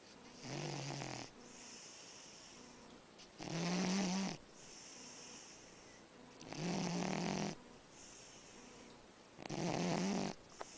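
Dog snoring in a steady rhythm: four buzzing snores about three seconds apart, with a soft hiss of breath between them.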